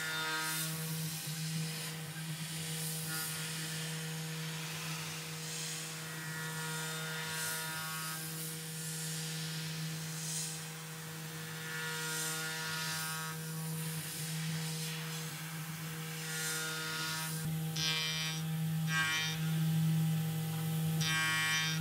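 Tormach 440 CNC mill spindle running steadily while a ball end mill cuts aluminum, with a whine that swells and fades every few seconds as the cutter engages, over a constant hiss of mist coolant. Near the end come a few louder, harsher bursts of cutting noise.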